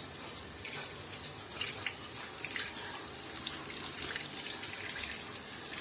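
Water running from a hose into the tub of a semi-automatic washing machine as it fills, a steady splashing hiss with small drips and splashes.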